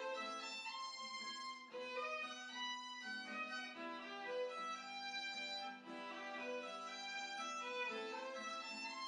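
Outro background music: a violin melody moving from note to note over a steady held low note.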